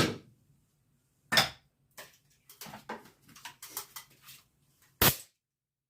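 Hammer knocking nails into a wooden beehive frame: a strike at the start, another about a second and a half in, then light clicking and clatter of handling, and one last sharp knock near the end.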